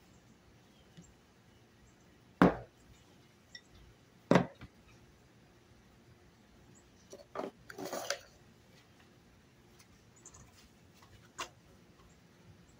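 A metal can and a wooden stick set down and moved on a plywood table: two sharp knocks about two seconds apart, then a brief clatter a few seconds later, and a light tap near the end.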